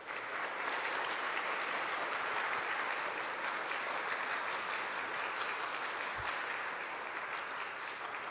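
A congregation applauding: steady clapping from many hands that eases off slightly near the end.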